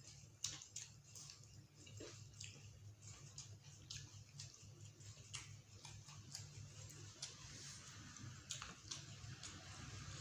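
Faint eating sounds: irregular small clicks and smacks of chewing and utensils, over a steady low hum.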